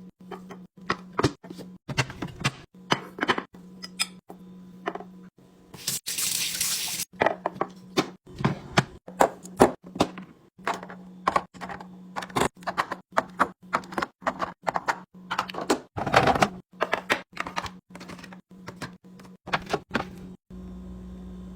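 Rapid series of knocks, clicks and clinks of food containers, bottles and packages being handled and set down while restocking a fridge, with a brief rushing hiss of about a second near the six-second mark. A low steady hum runs under parts of it.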